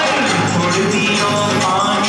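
A song with singing over percussion, playing loudly and steadily.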